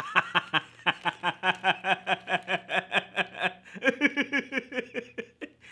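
A man laughing hard: a long unbroken run of quick 'ha' pulses, about six a second, dropping a little lower in pitch about four seconds in.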